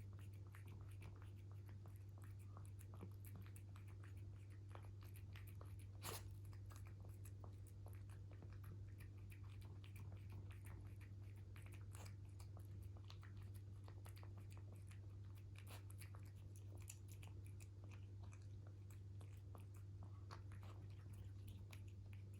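Bengal cat chewing faintly, many small crunching clicks over a steady low hum, with one sharper click about six seconds in.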